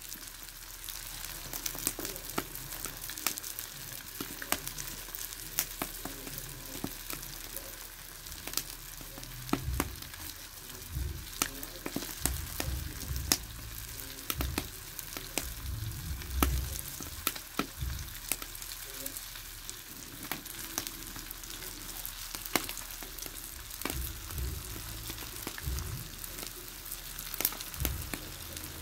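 Red mullet sizzling in their juices in a metal tray on a charcoal grill: a steady high hiss with frequent small pops and crackles, and a few low rumbles midway and near the end.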